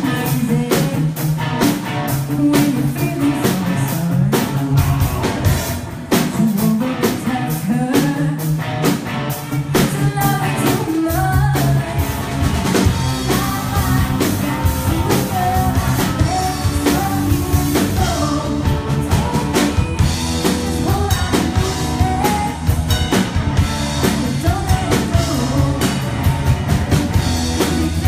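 Live rock band playing: a woman singing into a microphone over electric guitar and a drum kit. The low end gets heavier about eleven seconds in.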